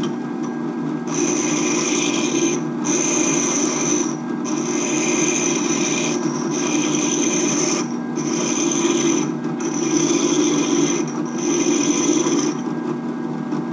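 Benchtop drill press running at its lowest speed with a steady hum while a steel 3/8-inch leather hole punch is held against a spinning 180-grit diamond bit and rolled to sharpen its edge. The contact gives a high scraping grind in about seven passes of one to two seconds each, with brief breaks between them.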